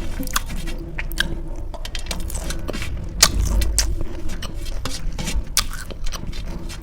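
A person chewing a mouthful of chole masala and rice, with repeated sharp, wet mouth clicks and smacks.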